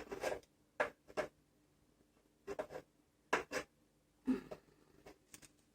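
Short bursts of rustling and scraping, about seven of them spread a second or so apart: packaging and parts being handled during unboxing.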